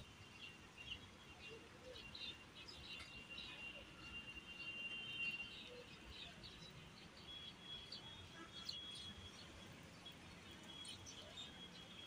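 Faint chirping of small birds: many short high notes, with a few longer thin whistled notes, over a low outdoor background hum.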